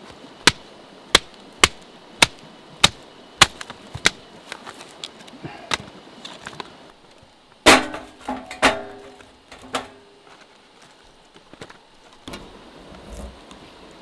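A knife is batoned through a block of hardwood, giving seven sharp knocks about 0.6 s apart over the first four seconds. About eight seconds in, the split sticks clatter onto a metal fire pit with a few ringing knocks.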